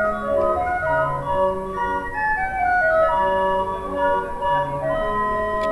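Hand-cranked barrel organ (street organ) playing a tune: a melody of held notes stepping up and down over a bass line that alternates between two low notes.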